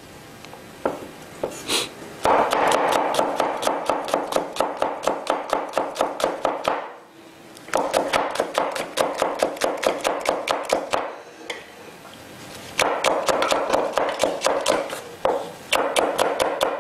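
Chef's knife chopping green Cheongyang chili peppers fast on a wooden cutting board, about six strokes a second. The chopping comes in runs of a few seconds with short pauses between.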